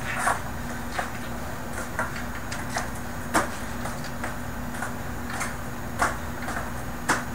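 Skateboard on carpet: about half a dozen short knocks and clacks of the board and feet at uneven intervals, the loudest about three and a half seconds in, over a steady low hum.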